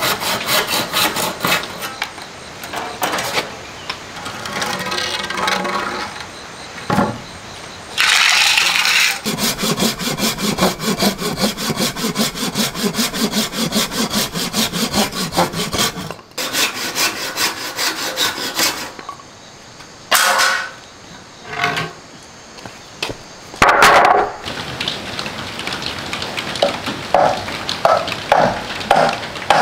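Handsaw cutting into wooden boards in quick, even back-and-forth strokes, in several runs broken by short pauses, with a sharper burst about eight seconds in and another near 24 seconds; slower strokes near the end.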